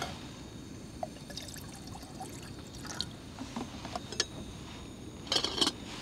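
Canister gas camping stove burning with a steady low rush, under light metal knocks as a pot is set on the burner, and a louder clatter of the lid going on near the end.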